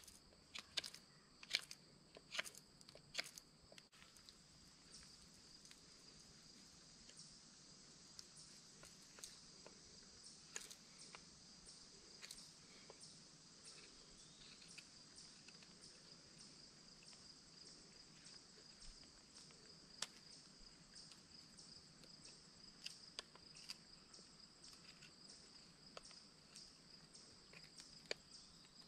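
Steady, faint high-pitched insect chorus in summer woodland, with a few sharp clicks in the first few seconds and scattered single clicks later.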